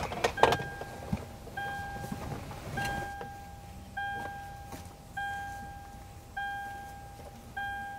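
A 2008 Toyota's dashboard warning chime dinging over and over, one fading single-pitched ding about every 1.2 seconds, with a few light clicks near the start.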